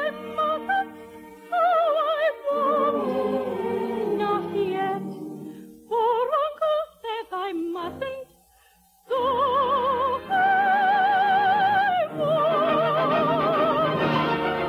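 Operetta singing with orchestra, the voice using wide vibrato. After a short pause just before the middle, the voice holds a long high note, then moves to a second held note.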